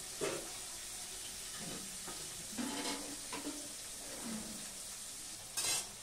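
Fish sizzling steadily as it fries in hot oil on a gas stove. A few brief sounds come through the sizzle, and there is a louder, sharp clatter a little before the end.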